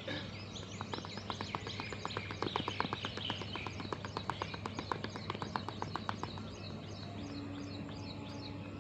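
Small birds chirping over and over, with a quick even run of short ticks, about six a second, from about a second in until about six seconds in. A low steady tone comes in near the end, over a constant background hum.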